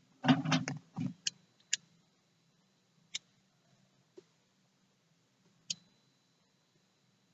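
Small objects being handled: a short cluster of knocks and rustling about a third of a second in, then a few sharp, separate clicks over the next few seconds.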